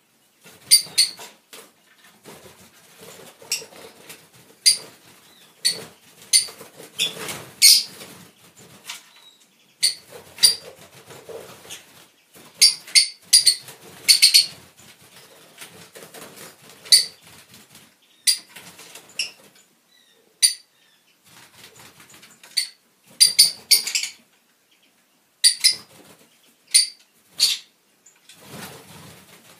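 Fischer's lovebirds calling in short, high-pitched chirps that come in irregular clusters, with wings flapping as some of the flock flies between perches.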